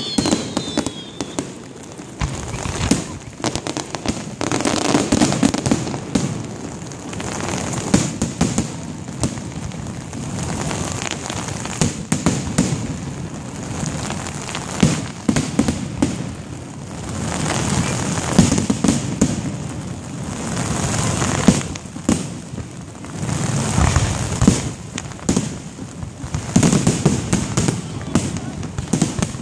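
Fireworks display: aerial shells bursting in a rapid, continuous barrage of bangs and crackling, swelling in waves every few seconds.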